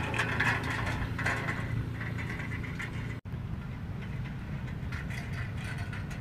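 Small lifeguard utility vehicle's engine running steadily as it drives across the sand towing a board trailer, with wind and surf noise. About three seconds in the engine sound breaks off abruptly, leaving only an even wash of wind and surf.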